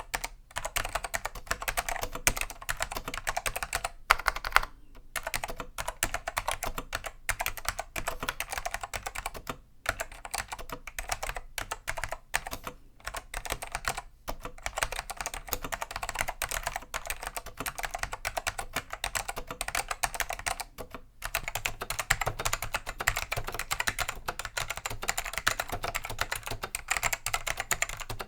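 Continuous fast typing on a Dell AT101 keyboard with cleaned, unlubed Alps SKCM Black "pine" tactile switches, a rapid stream of key clicks with a few short pauses.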